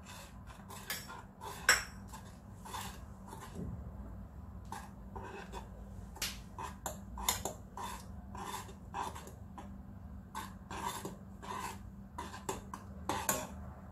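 Spoon stirring a mixture of melted butter, honey and baking soda in a saucepan, scraping and clinking against the pan in quick repeated strokes, with one sharper clink near the start.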